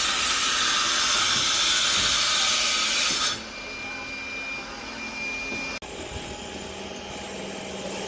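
A loud steady hiss that stops abruptly about three seconds in, leaving quieter construction-site background with a thin high whine for a couple of seconds.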